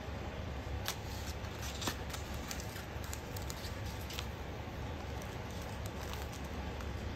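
Light clicks and taps of fingers handling food: pickle slices set down on bread and a sandwich pressed together on a paper plate, most of them in the first few seconds, over a steady low hum.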